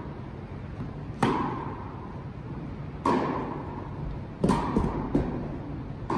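Tennis rally: a ball struck back and forth by rackets, a sharp pop every second and a half to two seconds, with lighter knocks of the ball bouncing on the court about four and a half seconds in. Each hit echoes in a large indoor hall.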